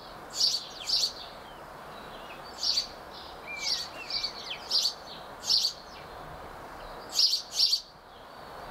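Small songbirds giving short, sharp high calls about once or twice a second, often in quick pairs, with a faint gliding whistle from another bird about three and a half seconds in, over a steady low hiss.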